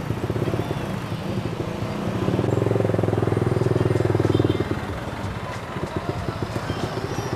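Kawasaki Ninja motorcycle engine running at low road speed with a steady exhaust pulse. It grows louder as the throttle opens about two seconds in, then eases back a couple of seconds later.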